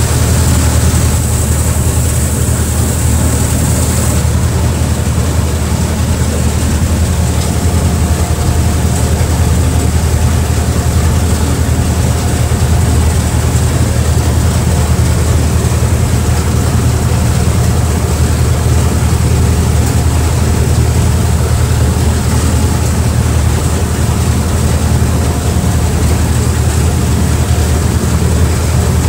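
Speedboat engine running steadily at cruising speed, a loud low drone, with water rushing past the hull and wind on the microphone.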